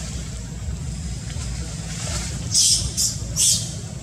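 A young monkey squeals: three short, sharp, high-pitched squeals in quick succession from about halfway through, over a steady low rumble.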